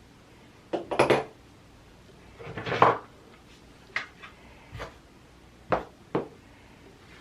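Hard objects being handled: a series of sharp clicks and knocks, with a short scrape about three seconds in.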